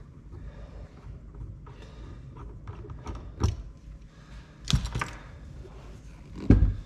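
Hand rivet-nut setting tool being worked and handled, giving a few sharp metal clicks and knocks, the loudest near the end.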